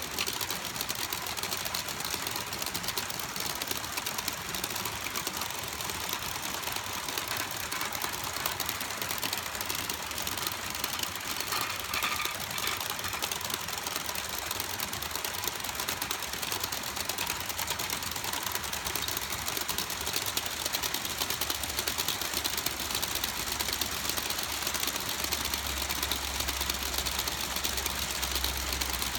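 A long string of HO-scale model hopper cars rolling past on the track, their wheels making a fast, continuous clicking clatter. A low hum joins in about 25 seconds in.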